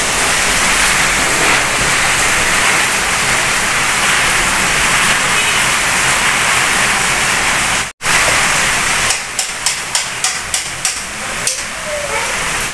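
Heavy rain pouring down on a street: a loud, steady hiss. After a brief break about eight seconds in, the rain is joined by a run of sharp taps.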